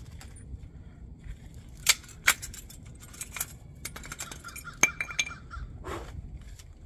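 Metal objects clinking and clattering: two sharp clinks about half a second apart, lighter clatter, then another sharp clink with a brief metallic ringing.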